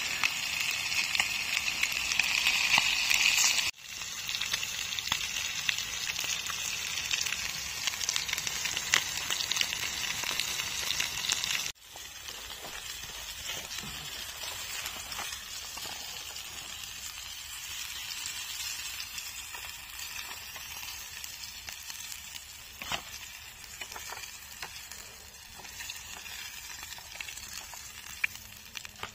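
Masala-coated fish pieces frying in butter in a pan, browning as they cook: a steady sizzle with scattered small crackles. The sizzle drops abruptly twice, about 4 and 12 seconds in, and is quieter after the second drop.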